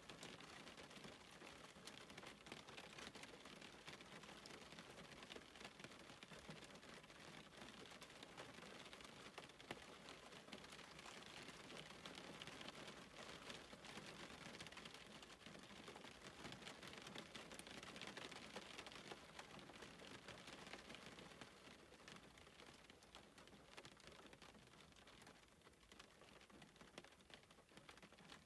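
Faint steady rain hiss mixed with a wood fire crackling in many small, sharp pops; the whole sound fades down near the end.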